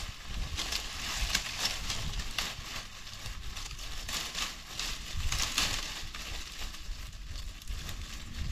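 Dry leafy branches being dragged and gathered over fallen leaves, the dead leaves rustling and crackling in irregular swishes.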